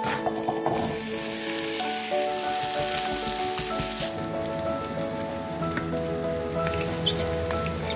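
Vegetables sizzling in oil in a frying pan, loudest for the first four seconds and then quieter, under background music with held notes.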